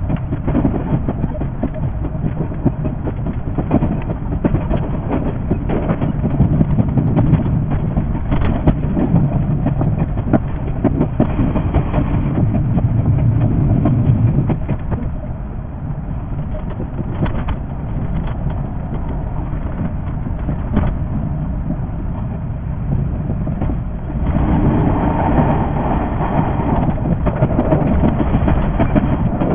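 JR 381 series electric train running, heard from the cab: a steady rumble with frequent short clicks from the wheels and track. The sound gets louder about 24 seconds in.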